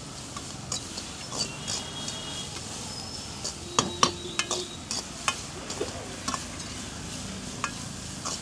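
Metal ladle scraping and knocking against a large wok as shredded cabbage, carrot and capsicum are stir-fried, over a steady sizzle. There are repeated clicks of metal on metal throughout, with a cluster of louder clangs about four seconds in.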